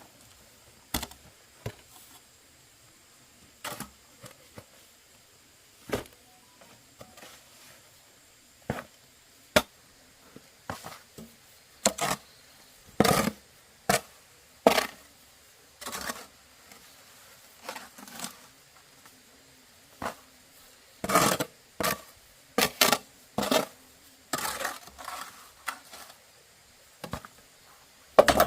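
Irregular knocks and clicks of hard objects, spaced out at first and coming in louder clusters in the second half.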